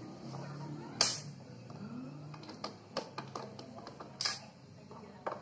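Hand screwdriver backing screws out of the plastic rear cover of an LG 22LN4000 LED TV: scattered light clicks and ticks, with two louder short scraping strokes about a second in and just past four seconds.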